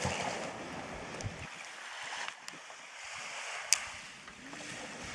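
Steady rush of surf and wind, with a sharp click about three and a half seconds in.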